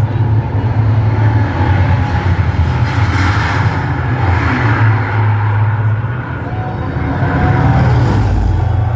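Air raid siren wailing over a steady low rumble, its tone gliding upward near the end.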